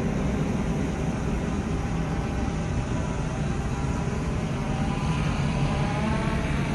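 DJI quadcopter drone's propellers whirring as it flies in to land, a steady buzz whose pitch rises for a moment about five seconds in.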